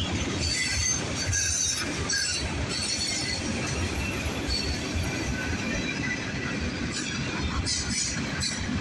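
CSX mixed freight train of tank cars rolling past: steel wheels running over the rails in a steady rumble, with high-pitched wheel squeal coming and going.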